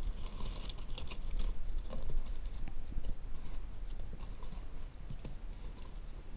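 Crumpled packing paper crinkling and rustling as hands dig through a cardboard shipping box, busiest in the first two seconds and more scattered after.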